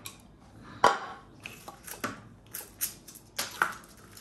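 Kitchen knife cutting onions and tomatoes on a plastic cutting board: about ten irregular, sharp knocks of the blade against the board, the loudest about a second in.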